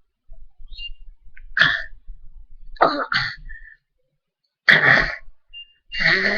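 A person coughing in several short, harsh bursts, reacting to swallowing Q-Tussin cough syrup.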